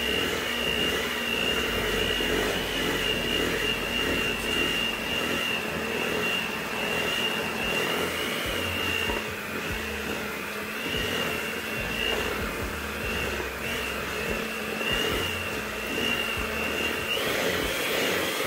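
Electric hand mixer running steadily with a high whine, its beaters working flour into stiff cookie dough in a stainless steel bowl. The whine shifts a little near the end.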